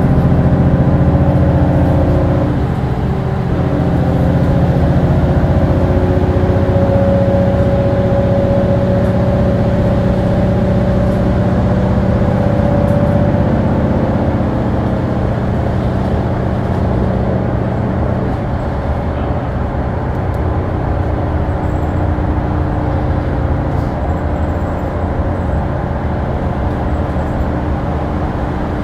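Mitsubishi Fuso LKG-MP37FKF city bus running, its diesel engine and drivetrain heard steadily, with a whine that holds from about a quarter of the way in to about halfway.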